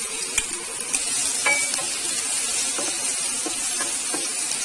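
Coarsely blended ginger sizzling steadily in hot ghee and mustard oil in a pan, with a few light clicks through the sizzle.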